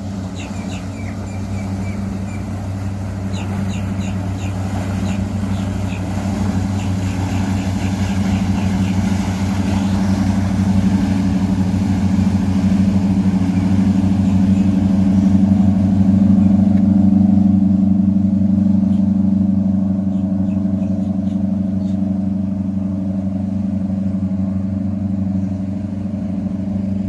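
Boat engines running as a boat passes: a steady low drone that grows louder to a peak about two-thirds of the way through, then eases a little.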